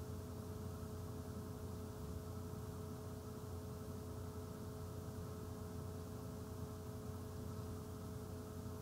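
Steady electrical hum with a couple of constant tones over faint hiss: the background noise of the recording, with no other sound.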